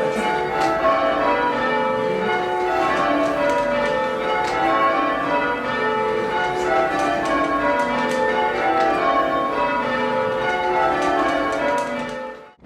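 Cathedral tower bells rung full-circle by a band of ringers in English change ringing. The bells strike one after another in steady runs that step down in pitch from treble to tenor, each bell ringing on over the next. The ringing cuts off abruptly near the end.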